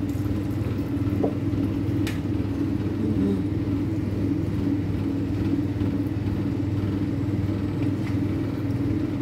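Steady low hum and rumble of kitchen background noise, with a single light knock about two seconds in.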